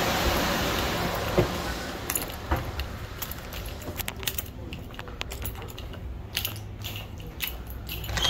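Small metal items jangling and clicking irregularly as a person walks, from about two seconds in. A steady whooshing mechanical noise at the start fades away over the first two seconds.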